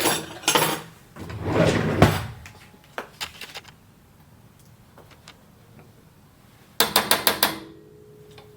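Kitchen utensils and a cutlery drawer clattering while a clean spoon is fetched: a clatter at the start, a scraping rustle about a second in, a few light taps, then a quick run of rattling clicks near the end, followed by a faint steady hum.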